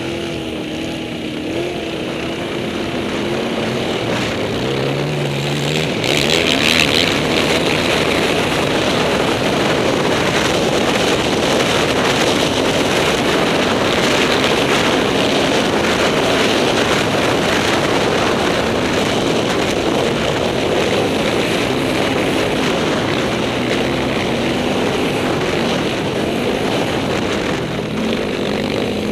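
Can-Am Outlander 800 XXC quad's Rotax V-twin engine running hard on a ride, its pitch shifting in the first few seconds. From about six seconds in, a loud, steady rush of wind and engine noise over the helmet-mounted camera's microphone takes over.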